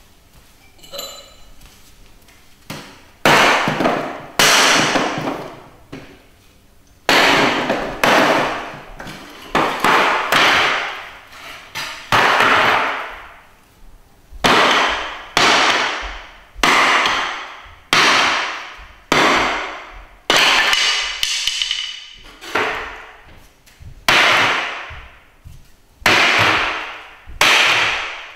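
A hatchet chopping into a wooden chair, about twenty hard blows in a row starting about three seconds in, roughly one a second, each trailing off in an echo off the bare room.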